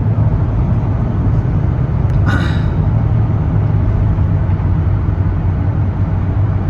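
Steady low rumble of road and engine noise inside a moving car, with a short higher-pitched sound about two seconds in.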